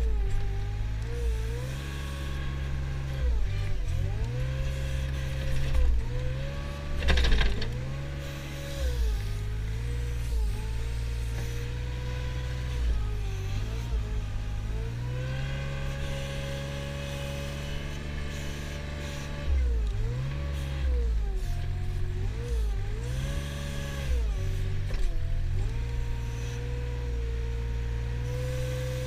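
Engine of a Mustang compact wheel loader working under load while pushing into a grass pile, its revs rising and falling again and again. A brief harsher rasping burst about seven seconds in.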